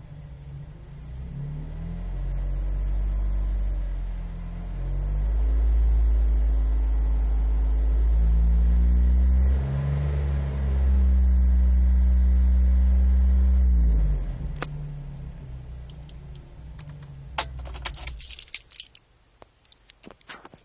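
2010 Jeep Wrangler Unlimited Rubicon's 3.8-litre V6 heard through its Magnaflow muffler: the revs build over several seconds and are held high with a brief dip partway, then fall back about fourteen seconds in. Near the end comes a run of sharp clicks and jangling, like keys.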